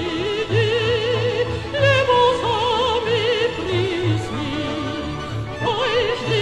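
A trained female voice sings a song in classical style, holding notes with a wide, even vibrato over instrumental accompaniment. The melody climbs about two seconds in, falls back lower, and sweeps up again near the end.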